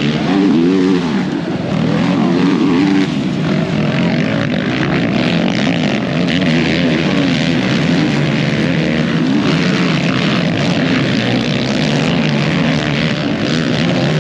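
Racing ATV engines revving hard, pitch climbing and falling again and again as the quads accelerate and shift around the motocross track, several engines overlapping.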